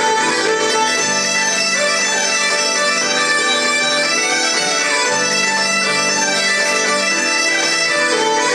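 Bagpipes playing a tune over their steady drone, together with a fiddle and a keyboard, as a traditional folk ensemble.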